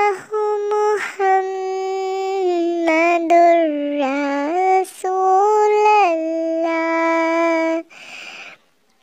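A high-pitched voice singing unaccompanied, holding long notes and sliding between pitches, with a brief breathy noise and a short pause near the end.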